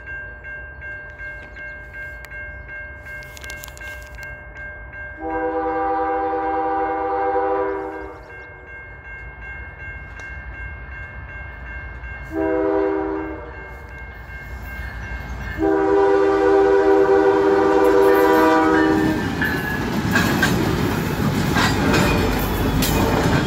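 Locomotive air horn sounding the level-crossing pattern — a long blast, a short one, and a long one, following another long blast just before — over the steady ringing of an electronic crossing bell. From about 19 seconds in, the train passes the crossing with wheels clattering on the rails.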